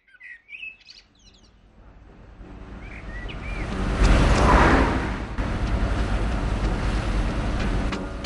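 Birds chirping briefly, then an old car's engine approaching and driving past, loudest about four to five seconds in. It is followed by a steady engine and road drone from inside the moving car.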